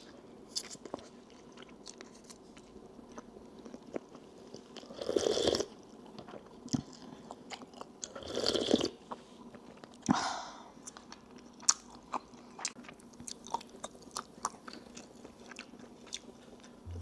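Close-up mouth sounds of a person chewing sugure gukbap, chewy cow-skin lining in rice soup: many small wet clicks, with three louder, longer noisy sounds about five, eight and a half and ten seconds in.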